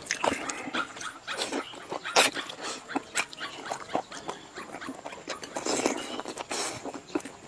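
A person eating noisily close to the microphone: wet chewing, smacking and sucking sounds, with many short clicks.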